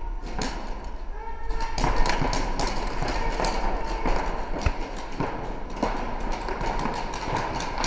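Pump paintball markers firing: an irregular string of sharp pops and cracks, several a second, echoing in a large hall.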